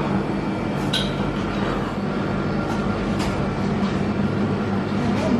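Steady low mechanical hum of milk vending machines, with a couple of sharp clicks about one and three seconds in as a bottle is handled in the dispenser compartment.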